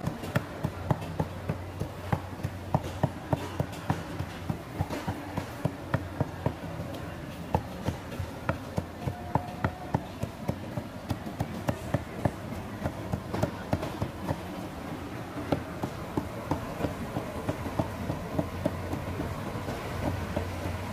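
Cleaver chopping fried chicken on a wooden chopping block: quick, even strokes, about two or three a second, stopping a few seconds before the end.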